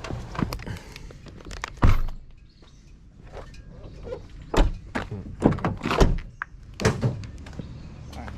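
Knocks and thuds of gear being handled and set down: one loud thud about two seconds in, then a run of sharper knocks later.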